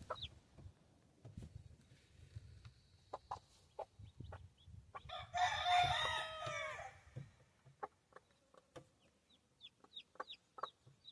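A rooster crows once, a single call of nearly two seconds about five seconds in, with short clucks and high calls from chickens scattered before and after.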